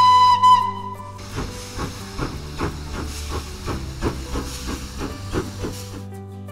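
Steam train whistle blowing for about a second, then rhythmic steam chuffing at about four puffs a second that stops about six seconds in, over background music.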